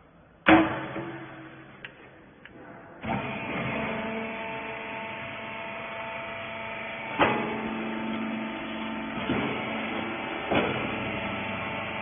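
A metal clang with a ringing tail as the rag baler's steel feed lid is shut. About three seconds in, the baler's electric motor and hydraulic pump start and run steadily with a hum of several tones, with a few metallic knocks from the press as it works.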